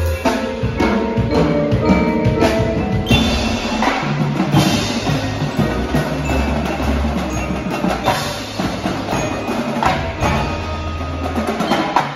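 Winter drumline playing: marimbas and vibraphones ringing out over fast snare, tenor and bass drum strokes and a drum kit, with deep held bass notes coming and going. The drumming thickens about three seconds in.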